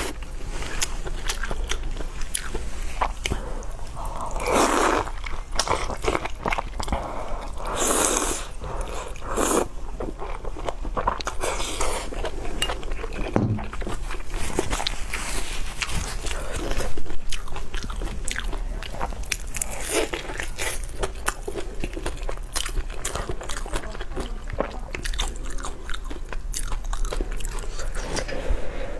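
Close-miked eating: wet chewing and biting on mouthfuls of noodles and meat, with clicking mouth noises throughout and several longer slurping sounds.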